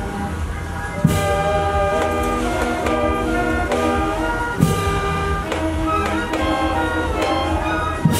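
Brass band or orchestra playing a slow piece with held chords, marked by a loud crash about every three and a half seconds.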